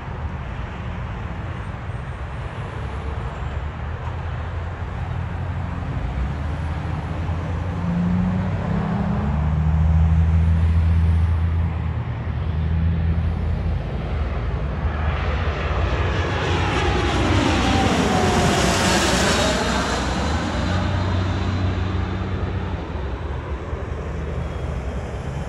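Jet on approach to land passing overhead: a steady low rumble that swells to a peak with a falling-then-rising sweep about 16 to 20 seconds in, then fades.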